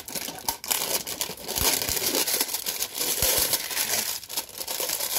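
Crinkling and rustling of packaging as a new tin oil lantern is turned over in the hands, with a few soft bumps.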